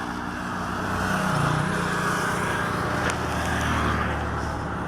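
A motor vehicle engine running, with a brief shift in pitch about a second and a half in and a single click near the three-second mark.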